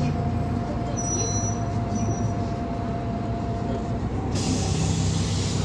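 Interior noise of a GolAZ-5225 city bus under way: the engine and drivetrain run with a low drone and a thin steady whine. The whine stops about four seconds in, and a steady hiss comes in just after.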